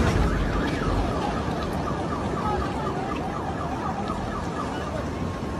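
A siren warbling rapidly up and down in pitch, several sweeps a second, over a steady background rush.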